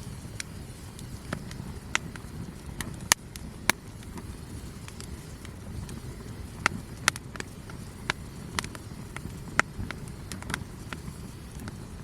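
Wood campfire crackling: irregular sharp pops and snaps, several of them loud, over a low steady rumble.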